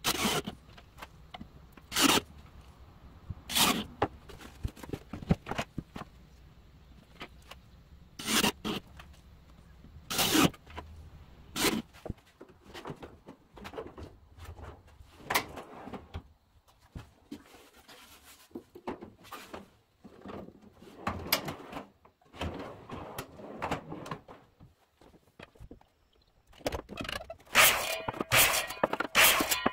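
Cordless drill driving screws through steel drawer slides into a plywood drawer, in about six short bursts. Then quieter metallic rubbing and clicking of ball-bearing drawer slides as the drawer is fitted. A run of rapid rubbing strokes near the end.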